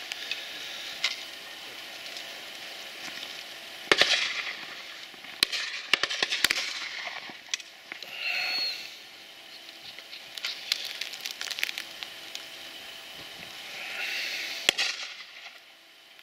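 Shotgun shots from a line of guns at a driven partridge drive: sharp reports scattered through, the loudest about four seconds in and several in quick succession around six seconds, over a breezy background.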